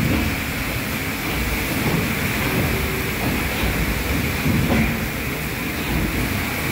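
PS Waverley's three-cylinder triple-expansion steam engine running steadily, its cranks and rods turning the paddle wheels with an even, rhythmic mechanical beat.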